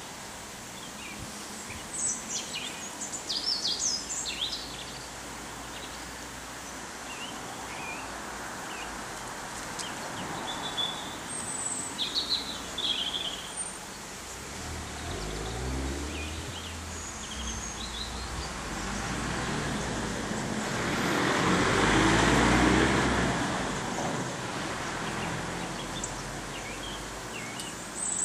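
Outdoor ambience: small birds chirping in short scattered bursts, with a broad rushing noise and low rumble that swells and fades over several seconds about three quarters of the way through.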